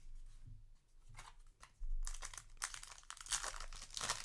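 Foil trading-card booster pack wrapper crinkling in the hands. After a quiet start with a few soft clicks, it begins about two seconds in.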